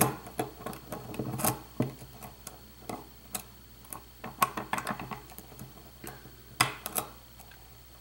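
Steel hook pick and tension wrench working in a euro cylinder lock: irregular small metallic clicks and light scrapes as the pick probes the pins. The clicks thin out toward the end, with two louder ones shortly before.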